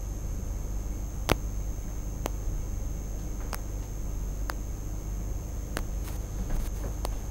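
Quiet room tone with a steady low hum and a thin, steady high-pitched whine, broken by a handful of sharp clicks about a second apart. The loudest click comes just over a second in.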